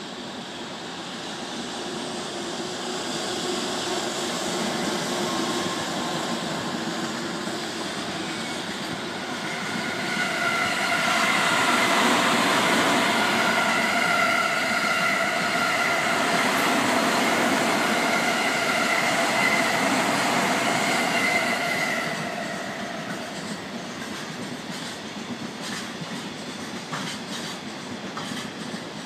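Container freight train hauled by an electric locomotive rolling past. The rumble builds and is loudest from about ten to twenty-two seconds in, with steady high tones over it, then eases off as the wagons keep rolling by.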